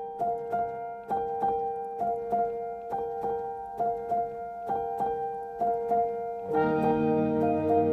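Background piano music: a steady, evenly paced pattern of notes, with lower notes joining in about six and a half seconds in.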